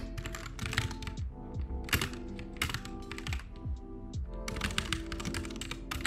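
Computer keyboard typing in short flurries of keystrokes, over lofi background music with a steady beat.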